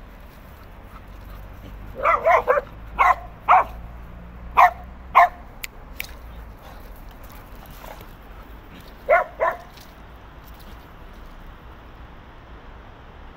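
A dog barking in short, sharp barks while the dogs play: a quick run of three about two seconds in, four single barks over the next few seconds, then a pair near the middle.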